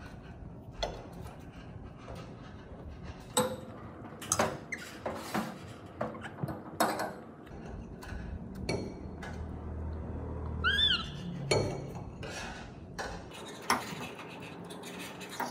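Dishes and kitchen utensils clinking and knocking at irregular intervals, with a pet monkey giving a few short, high squeaks about eleven seconds in.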